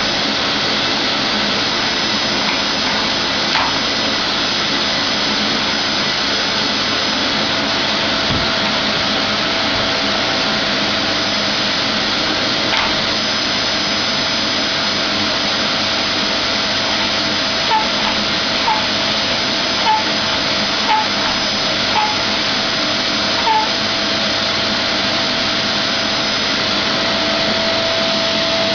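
Vacuum cleaner running steadily, with a steady whine that comes in about a quarter of the way through and grows stronger near the end. Six short high chirps are heard in the later part.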